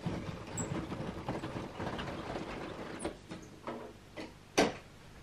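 Exterior roller shutter being hauled up by its pull strap, the slats clattering steadily as they wind onto the roller for about three seconds. A few clicks follow, then a single sharp knock near the end.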